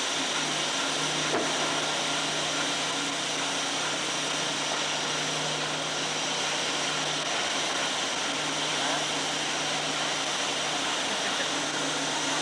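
Steady machine noise: an even hiss with a low hum underneath, unchanging throughout.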